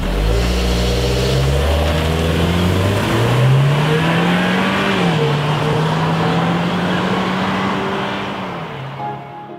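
Car engine accelerating through the gears: its pitch climbs, drops at each shift and holds steady, then falls away and fades near the end.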